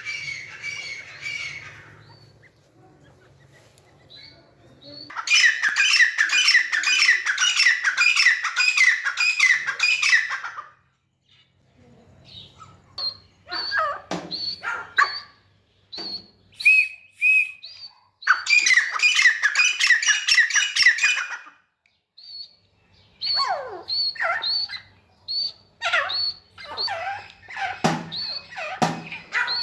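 Grey francolin calling: two bouts of fast, repeated ringing notes a few seconds long, with scattered shorter whistled notes between and after them.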